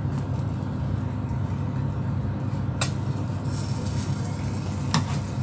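Steady low hum of kitchen equipment, with two sharp clicks about two seconds apart.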